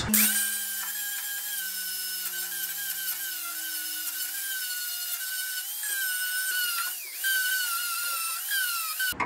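Handheld angle grinder running at full speed and grinding steel on a truck frame cross member, taking fastener heads down flat. It gives a steady high whine whose pitch sags briefly a few times as it is pressed into the metal, and it cuts off near the end.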